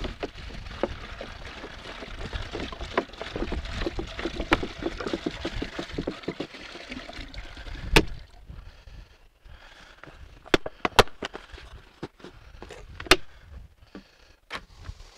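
Water pouring and gurgling into a 20-litre container for about eight seconds, ending with a sharp knock. After that it goes quieter, with a few separate sharp clicks and knocks.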